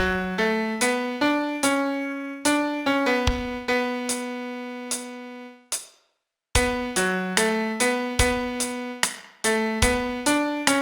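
Solo piano playing a slow song melody one note at a time, each note struck and left to fade. The line pauses for a moment of silence a little before the middle, then carries on.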